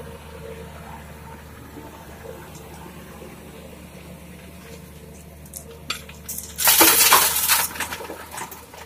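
Gravel and river stones dumped from a Komatsu PC200-6 excavator's bucket into a Canter dump truck's steel bed, clattering loudly for about a second and a half after a few scattered clinks. A diesel engine runs steadily underneath.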